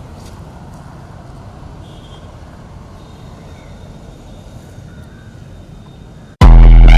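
Steady low rumbling outdoor background noise with no speech. Near the end, a very loud electronic music burst cuts in suddenly.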